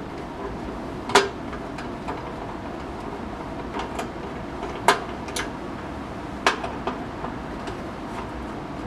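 Sharp metallic clicks and clinks of a Phillips screwdriver loosening the screws on a metal chop saw's blade cover plate. There are a handful of separate clinks spread over several seconds, the loudest about a second in and another near five seconds.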